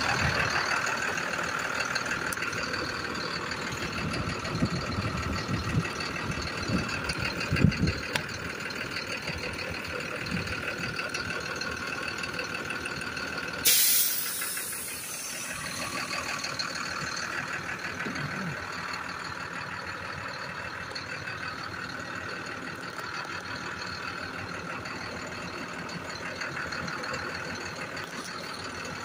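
International DuraStar 4400 truck's diesel engine idling steadily. About fourteen seconds in there is a sudden short burst of air hiss, and a few low thumps come in the first several seconds.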